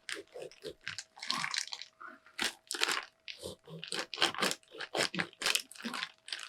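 Knife cutting into the hard, spiky rind of a whole jackfruit: a run of irregular crunching strokes as the blade works through it.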